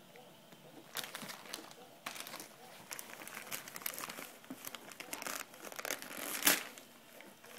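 Wrapping paper crinkling and tearing as a small child pulls at a wrapped present, starting about a second in, with one louder rip late on.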